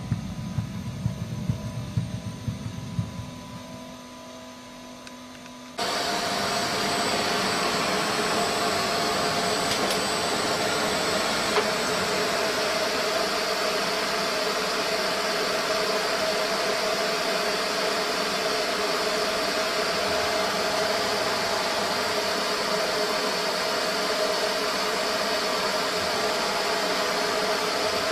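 A low rumble with irregular knocks. About six seconds in it gives way abruptly to the steady whine and hiss of a CNC machining centre's spindle router bit cutting grooves into a slab, which holds at an even level.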